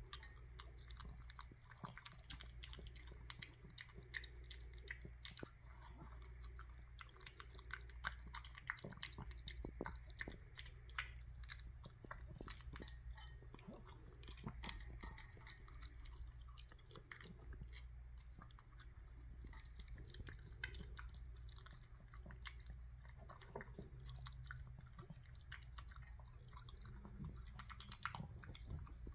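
A dog chewing and munching a fruit salad of apple bits in yogurt: faint, irregular crunchy and wet clicks, continuing throughout.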